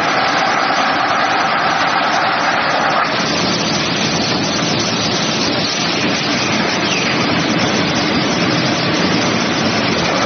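Industrial wide-belt sanding machine of a plywood sanding line running: a loud, steady rush of machine noise from its motors and abrasive belts. A humming tone rides on top for the first three seconds, then drops away.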